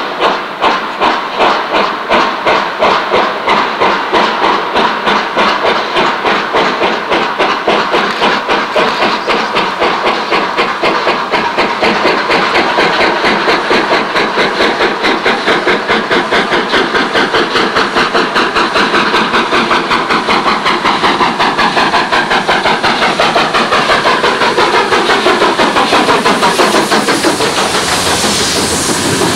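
Romanian steam locomotive 131 060 starting away and accelerating hard, its loud exhaust beats quickening from about two or three a second to a fast, nearly continuous chuffing. Near the end it comes close and its sound drops in pitch.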